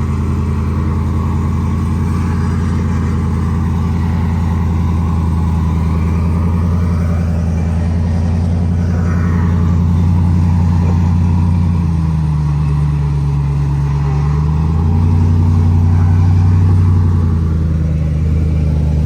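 Full-size pickup truck engine running steadily under load on a steep off-road climb. Its pitch dips about twelve seconds in, then comes back up a few seconds later.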